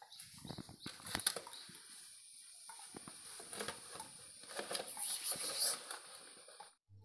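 Used engine oil pouring from the sump drain of a Greaves 6.5 hp diesel engine into a basin below, an irregular splashing and pattering. A thin, steady high-pitched tone sounds behind it and cuts off suddenly near the end.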